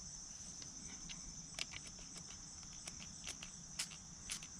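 Steady high-pitched insect chirring in the background, with about ten faint, irregular light clicks.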